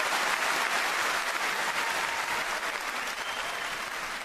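A large audience applauding, a standing ovation: dense, steady clapping that slowly grows quieter.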